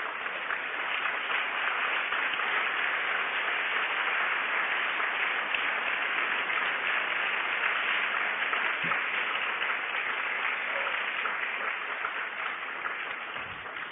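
Audience applauding, steady and sustained, dying away near the end.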